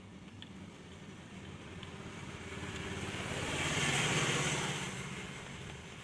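A road vehicle passing by: its rushing noise swells to a peak about four seconds in, then fades, over a low steady hum.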